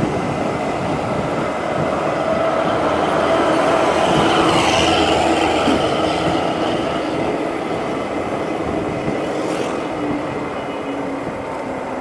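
Steady engine and road noise from riding along a busy road in traffic, with other vehicles passing close by. The noise swells about four seconds in and eases off again after six seconds.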